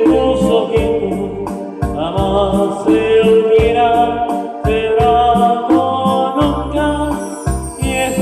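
Choir singing with electronic keyboard accompaniment and a steady programmed beat, about three beats a second.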